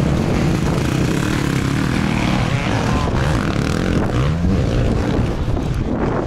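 Several dirt bike engines revving hard as riders accelerate past, one rising in pitch about four seconds in.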